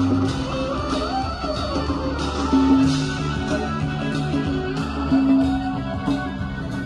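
Live band music through a PA: electric guitar and bass guitar playing held notes over a steady beat, without singing.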